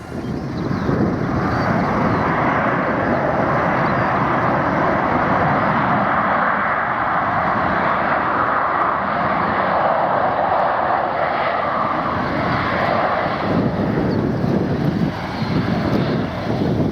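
Jet airliner engines running, heard as a loud, steady rushing noise with a small dip near the end.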